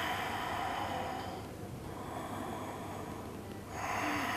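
A woman breathing slowly and audibly: one long breath fades out about a second and a half in, and the next begins near the end.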